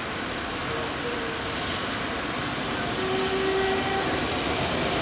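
Steam locomotive running slowly toward the listener, its rumble growing steadily louder. A few faint, thin, high tones sound over it, mostly in the second half.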